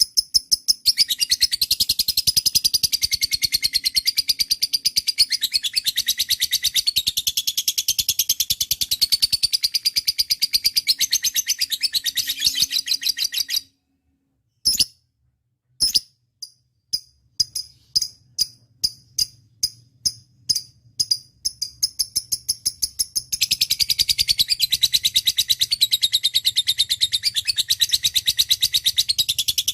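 Lovebird chattering in a long, very fast run of high-pitched chirps. About halfway through it breaks off for a couple of seconds of near silence, then gives separate chirps a few per second before the fast chatter starts again near the end.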